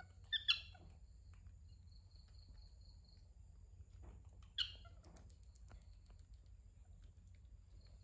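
Baby monkey giving short, high, falling squeaks: two close together about half a second in and one more about four and a half seconds in. A faint steady low hum runs underneath.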